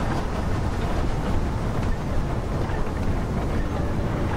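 Model railway goods train rolling past on the layout: a steady rumble of wagon wheels on the track.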